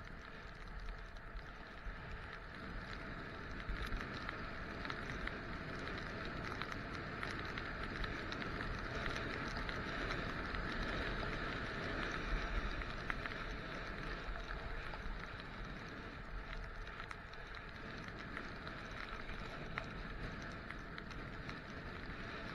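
Skis sliding over snow on a downhill run: a steady hiss, a little louder in the middle, with low wind rumble on the microphone.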